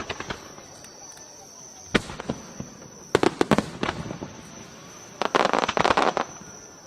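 Aerial fireworks bursting: a single bang about two seconds in, then a quick cluster of bangs around three seconds in and a longer rapid volley after five seconds.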